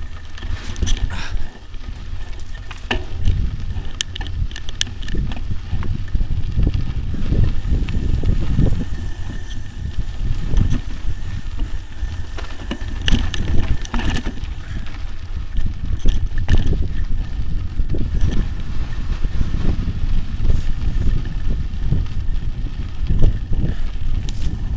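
Mountain bike riding over a rough dirt and gravel trail, heard from a camera on the bike: a steady low rumble of wind and jolting on the microphone, with frequent sharp rattles and knocks as the bike hits bumps.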